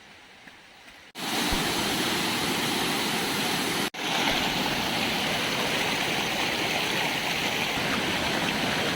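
Chamadka Falls rushing: a steady, loud wash of falling water that cuts in abruptly about a second in, breaks off for an instant near the middle, and carries on.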